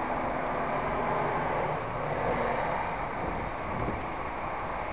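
Steady street traffic noise from passing vehicles, with a low engine hum in roughly the first half that fades out.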